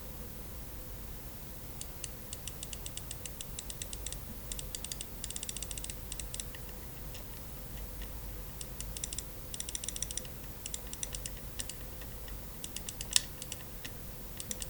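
Mouse microswitch clicked over and over in quick runs, small sharp plastic clicks, with one louder click near the end. The switch has just had oil dripped into it to cure the left button registering a double click.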